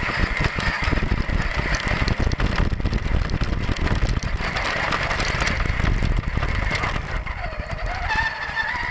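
Axial Deadbolt 1/10-scale RC crawler driving over grass and dirt, heard from a camera mounted on the truck: a steady rattle and bumping from the chassis and drivetrain over a low rumble, with the electric motor's whine. Near the end the whine dips and then rises in pitch.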